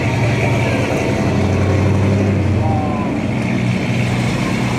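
Pontiac GTO's V8 engine running with a steady low exhaust note as the car drives slowly past and away.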